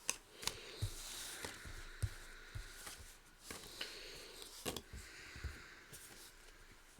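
Trading cards being handled and sorted on a table: soft sliding swishes of card on card, with scattered light taps as cards are set down.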